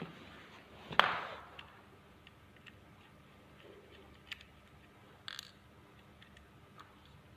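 Handling noise as wires are attached to the terminals of two 12 V batteries: a sharp click about a second in, then a few light clicks and taps.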